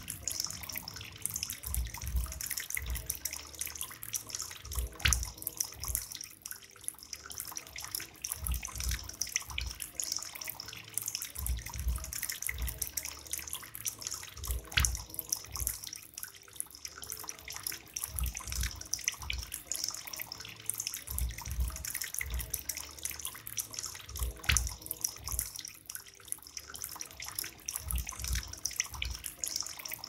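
Water trickling and splashing steadily from bamboo spouts into a pebble-filled bamboo basin of a small tabletop fountain, with irregular low thumps every second or so.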